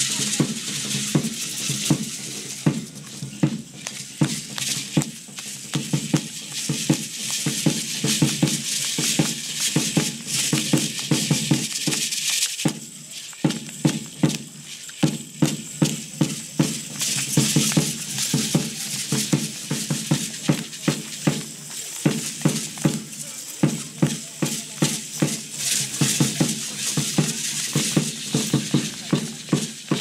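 Matachines dance music: a drum beating steadily, about three beats a second, with the dancers' hand rattles shaken in time.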